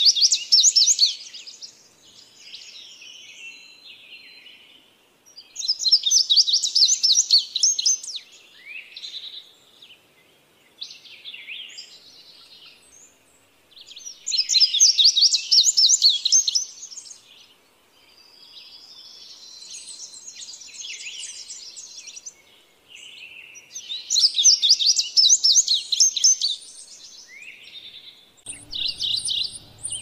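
Male indigo bunting singing: four loud songs, each a rapid run of high, clear notes lasting about two seconds, several seconds apart, with fainter bird song phrases in between.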